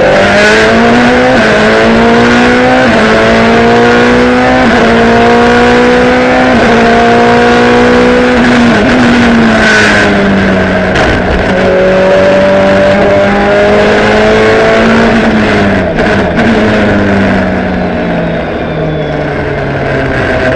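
Ferrari F430 GT2's V8 racing engine heard loud from inside the cockpit, climbing in pitch through several quick upshifts. About ten seconds in it falls sharply in pitch, then it holds steadier before falling in steps with downshifts near the end.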